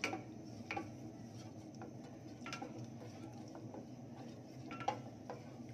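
Wooden slotted spatula stirring thickening coconut cream in a stainless steel saucepan, with light irregular knocks and scrapes against the pan, one louder knock near the end.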